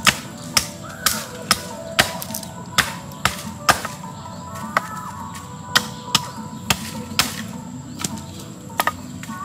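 Hatchet chopping into a green wooden branch: about fourteen sharp chops at an uneven pace of one to two a second, with a quick double chop near the end. Background music plays underneath.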